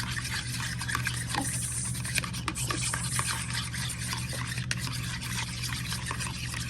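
Raw eggs being mixed by hand in a bowl: a continuous wet rubbing and stirring with many small clicks, over a steady low hum.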